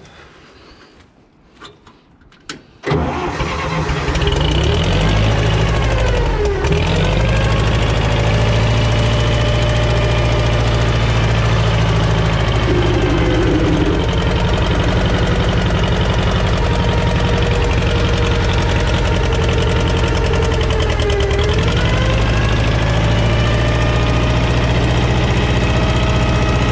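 John Deere crawler dozer's gasoline engine starting: a brief crank, then it catches about three seconds in and runs steadily, its speed sagging briefly and recovering twice. It is running on a freshly freed-up distributor and cleaned carburetor, fed from a temporary fuel tank.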